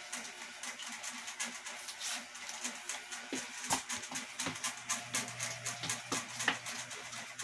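Sneakers stepping and scuffing on a bare concrete floor: a run of irregular light taps and scrapes, several a second, with a few louder ones in the middle and later.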